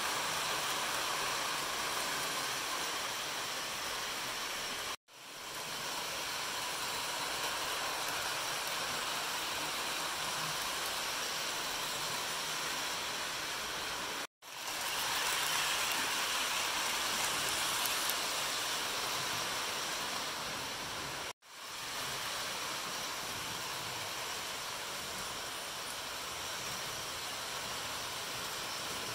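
Steady whirring hiss of electric model trains running on a layout, without any clear rhythm. It cuts out abruptly three times and swells back in after each break.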